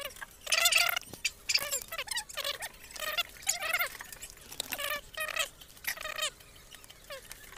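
An animal's short, high-pitched calls, repeated about a dozen times at roughly two a second, several dropping in pitch at the end.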